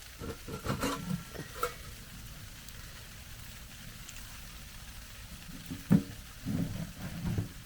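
Pieces of firewood knocking and clattering as they are handled, in two spells, over a steady patter of freezing rain on the tent roof.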